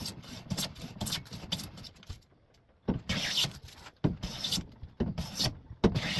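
Hand plane shaving along a board's edge in repeated short strokes, truing the edge flat and square. There is a pause about two seconds in, then about four strong passes roughly a second apart.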